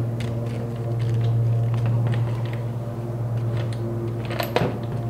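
Light clicks and taps of a plastic string-trimmer head being handled and taken off the trimmer shaft, with a couple of sharper taps near the end, over a steady low hum.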